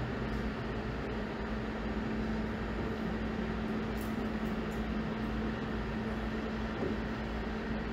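Steady hum of kitchen equipment, an even low drone that does not change, with a faint light click about four seconds in.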